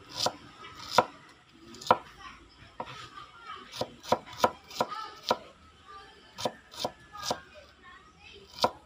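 Chef's knife chopping a red onion on a wooden cutting board: sharp, irregular knife strikes about every half second, with a quicker run midway.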